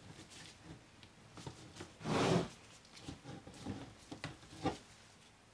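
Spatula stirring and scraping thick cold-process soap batter in a plastic measuring pitcher. A longer scrape comes about two seconds in, followed by a few light knocks and scrapes of the spatula against the pitcher.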